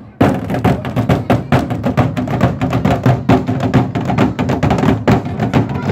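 Music with a quick, steady percussive beat.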